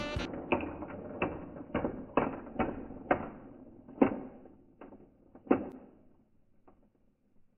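The metal wheels of an HO-gauge model-railway bogie click over the gaps and frogs of a handmade diamond crossing. There are about ten sharp clicks, one or two a second, spacing out and fading after about six seconds.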